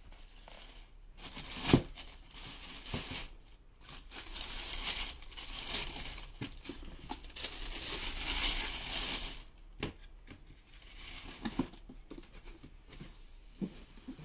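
Thin tissue paper rustling and crinkling as it is handled and folded over a sneaker in a cardboard shoebox, loudest about eight seconds in. There is a single sharp knock a little under two seconds in, and a few lighter cardboard knocks in the last few seconds.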